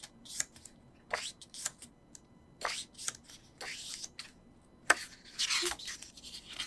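Pages of a glossy album photo book being turned by hand: an irregular run of short paper swishes and rustles, with one sharp click about five seconds in.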